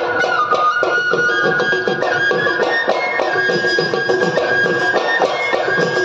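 Live Assamese folk music: barrel drums (dhol) beating a fast, steady rhythm under a high, sustained wind-instrument melody of long held notes.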